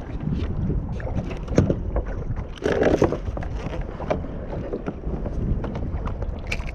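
Wind rumbling across a kayak-mounted action camera's microphone, with scattered clicks and knocks from fishing rod and line handling on the kayak, and one louder dull knock about three seconds in.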